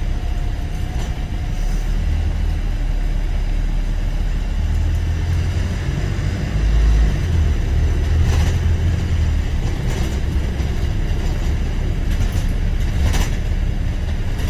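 Single-deck bus heard from inside the passenger saloon: a steady low engine and road rumble, with a heavier low thud about seven seconds in and a few brief rattles in the second half.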